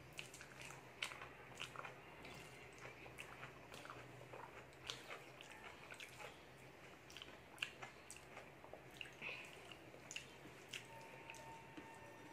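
Eating sounds: chewing, with irregular soft clicks as fingers mix rice and dal on a steel plate.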